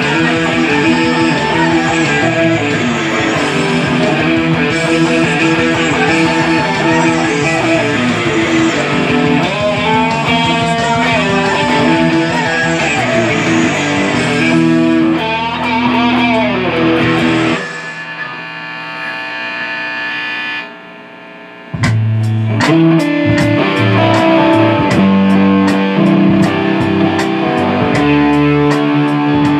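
Electric guitar played loud through a Marshall amplifier, jamming lead lines with string bends over other instruments. About 18 seconds in, the playing breaks off into ringing notes that die away; about four seconds later the music comes back in with a steady ticking beat.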